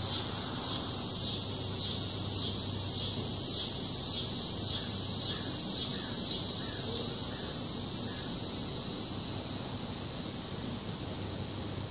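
A loud insect call, a high buzz pulsing about twice a second, that fades away over the last few seconds.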